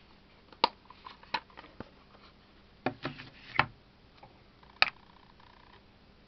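Sharp clicks and knocks of a pocket digital scale being handled on a tabletop: it is set down and opened, and a small metal dish is placed on its weighing plate. There are about half a dozen hard clicks, with a quick cluster in the middle and a last sharp tap near the end.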